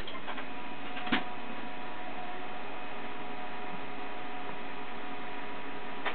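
Laser printer running: a steady whirring hum with a few clicks, the sharpest about a second in.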